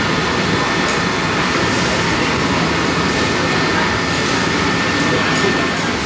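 Steady background din of a busy hawker centre: ventilation fans and the murmur of diners, with a faint steady high whine.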